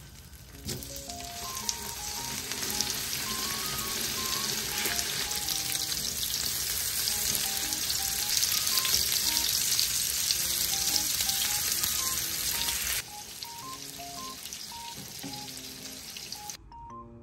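Butter and chuck-flap steaks sizzling in a nonstick frying pan. The sizzle builds louder, then drops off abruptly about three-quarters through to a quieter sizzle.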